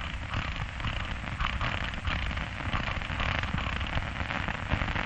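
Steady crackle and hiss of a worn old film soundtrack, a dense patter of fine clicks.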